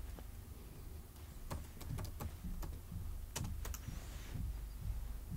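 Typing on a laptop keyboard: a short run of soft, irregularly spaced key clicks, bunched in the middle as a short name is typed.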